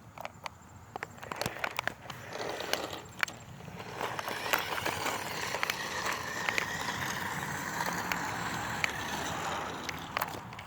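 Remote-control car driving: its small electric motor whines steadily and its wheels roll over rough ground. The drive builds up about two seconds in after a few scattered clicks and knocks, and it holds steady until near the end.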